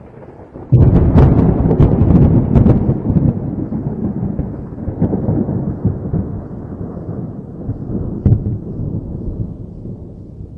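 A thunderclap: a sudden loud crack less than a second in, then a long rolling rumble with several sharper cracks over the next two seconds and one more near the end, fading slowly away.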